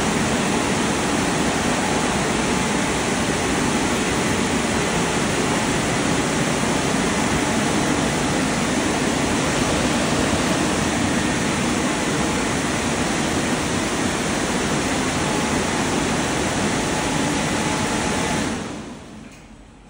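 Air blowers of a rollover car wash dryer running with a steady loud rush, then winding down and fading out near the end as the drying stage finishes.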